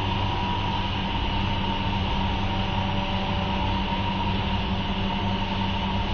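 CNC router running with a steady machine hum and a constant higher whine, unchanging throughout.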